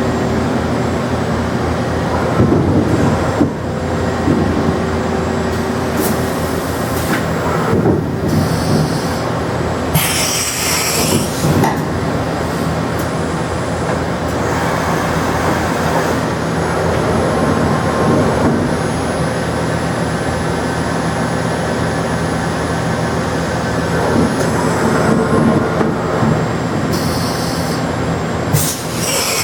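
Steady machine-shop noise: machinery running with a constant hum made of several steady tones, broken several times by short bursts of hiss.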